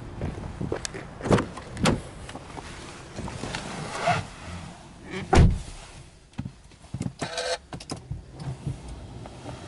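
Driver's door of a Subaru Legacy B4 sedan being opened and someone climbing into the seat. The door shuts with a heavy thump about five seconds in. Near the end come clicks and a short buzzing tone as the ignition is switched on, with the engine not yet started.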